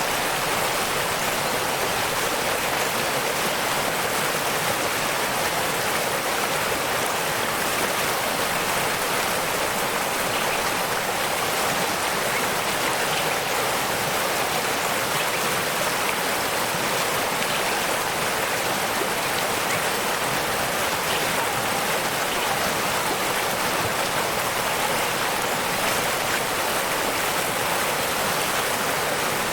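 Waterfall: rushing water making a steady, even hiss that does not change.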